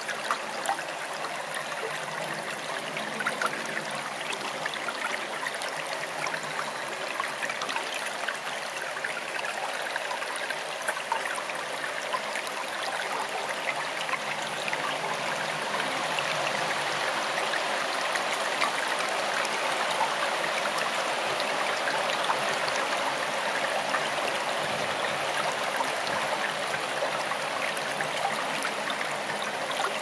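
Forest stream flowing: a steady rush of running water that grows slightly louder about halfway through.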